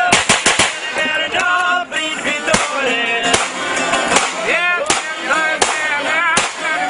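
Live folk music on clarinet with a man singing, broken by sharp bangs from a handgun fired into the air: a quick run of shots right at the start, then single shots about every second.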